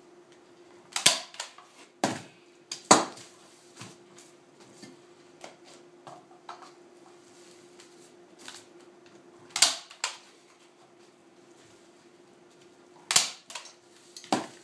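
Hand-held Rapid staple gun firing staples into wooden canvas stretcher bars as the canvas is pulled taut: sharp snaps, three in quick succession in the first three seconds, then a few more spaced several seconds apart.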